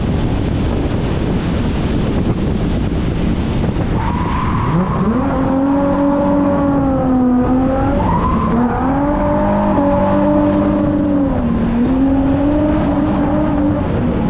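Holden VY Commodore Calais engine revving hard and held high through a drift, its pitch wavering up and down, with the tyres squealing. The first few seconds are a rough rush of engine and tyre noise before the revs climb sharply.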